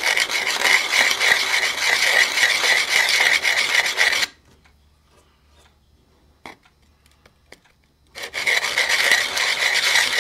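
A sanding block scrubbed back and forth across the freshly hacksawed end of a shotgun barrel, squaring up and smoothing the cut. The rapid rubbing strokes stop about four seconds in, with a couple of light clicks during the pause, and start again near the end.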